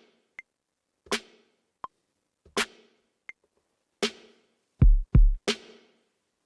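Drum-machine beat played back from a Maschine MK3. A sharp drum hit sounds about every one and a half seconds, a short faint click falls halfway between each, and two deep sub-bass notes sound close together near the end.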